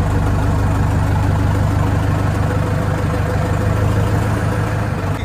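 Swaraj tractor's diesel engine idling steadily with an even, fast firing pulse.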